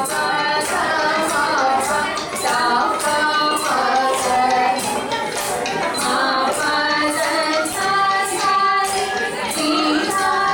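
Indian dance music: a woman singing a melody over a steady percussion beat with jingling strokes a few times a second.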